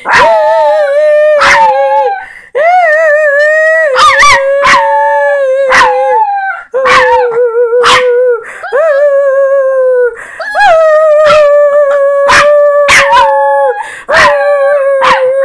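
Small dog howling: a run of long, steady howls, each held for one to three seconds with brief breaths between, with frequent sharp clicks over them.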